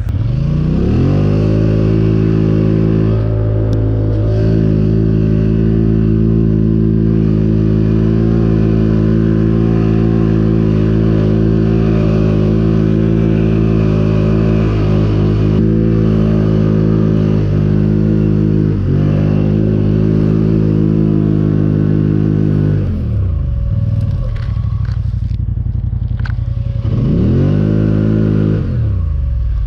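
Polaris four-wheeler engine revving up and then holding steady high revs under load while pushing through deep snow. It dips briefly twice, drops back near idle about three-quarters through, then revs up once more and falls again near the end.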